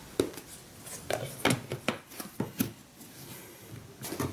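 Plastic lid being handled and pressed down onto a plastic food-storage tub: a string of irregular clicks and knocks of plastic on plastic, with a few sharp louder snaps.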